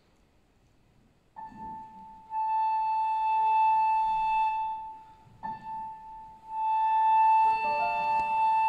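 Concert flute playing two long held notes on the same high pitch, each swelling louder; the first begins about a second and a half in. A piano chord joins the second note near the end.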